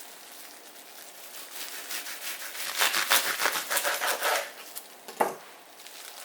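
Quick rubbing strokes that build up and are busiest a few seconds in, followed by a single knock.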